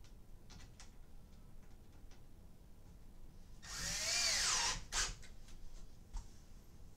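Cordless drill driving a screw through a wooden bed slat into the frame: one run of about a second, the motor's whine rising then falling, with a sharp click just after. Small clicks and taps around it.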